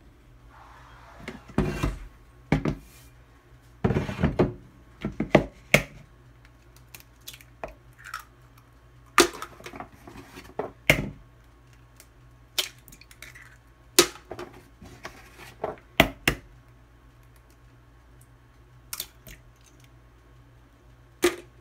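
Eggs being cracked against a mixing bowl and kitchen items handled on the counter: an irregular string of sharp knocks and taps, some in quick clusters, with a pause of a couple of seconds near the end.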